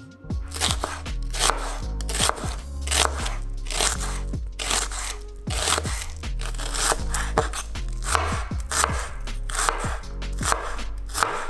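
Chef's knife dicing a red onion on a wooden cutting board: repeated crisp crunching cuts, each ending in a knock of the blade on the board, over background music.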